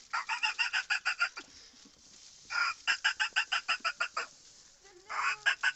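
A man imitating a fox's call with his voice: three runs of short, rapid notes, about eight a second, the last run starting about five seconds in.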